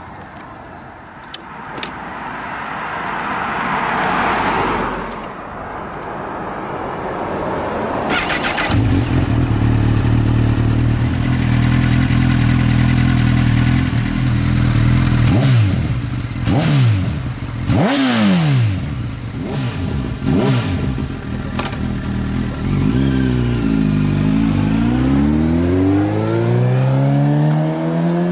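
Honda CB1000R's 998 cc inline-four with a Leo Vince aftermarket exhaust, cranked and started about eight seconds in after a rising whoosh, then settling into a steady idle. It is blipped several times, the revs jumping and falling back, and near the end the revs dip and climb again as it accelerates.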